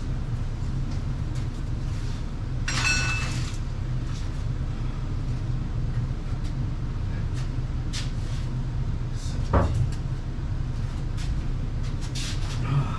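Metal parts and tools clinking and knocking as traction bar rods are fitted under a car, with a short ringing metal clatter about three seconds in and a sharper knock near ten seconds, over a steady low hum.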